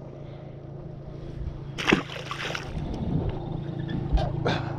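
A freshwater drum released back into the river with a single splash about two seconds in, over a steady low hum. A few light knocks follow near the end.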